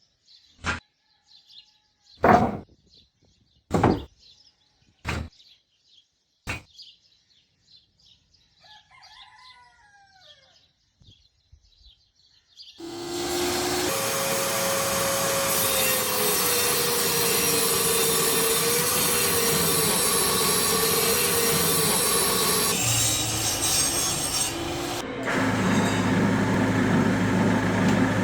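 Five sharp knocks about a second and a half apart, with faint bird chirps behind them. About halfway through, a power tool starts and runs loud and steady with a wavering hum, its sound shifting twice near the end.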